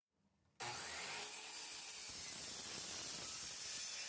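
Power miter saw cutting through a weathered rough-sawn red oak board. The motor and the cut start suddenly about half a second in and run steadily.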